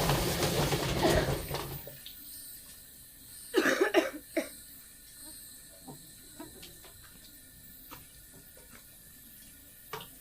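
Water running or spraying, cutting off about two seconds in; a short cluster of sharp, loud sounds follows about four seconds in, then a few faint clicks.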